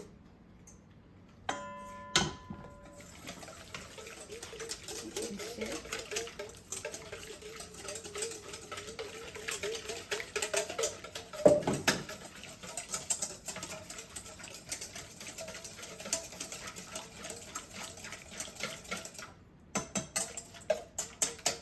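Fast stirring of an egg and parmesan mixture in a bowl as hot pasta water goes in: a long run of quick light clicks of a utensil against the bowl, with one louder clink about halfway and steadier strokes at three to four a second near the end. A short beep sounds about two seconds in.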